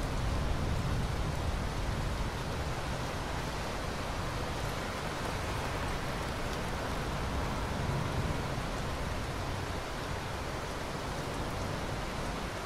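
Steady rain falling, an even, dense hiss with a low rumble underneath.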